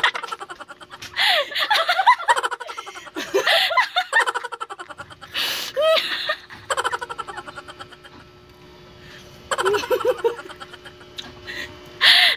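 A person giggling and laughing in repeated short bursts, breathy and choppy, going quiet for a couple of seconds past the middle before starting again.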